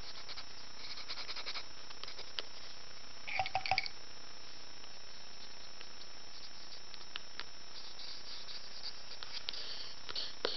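A pen scratching and scraping on paper while drawing, in short spells, with a brief louder cluster of scrapes and clicks about three and a half seconds in, over a steady hiss.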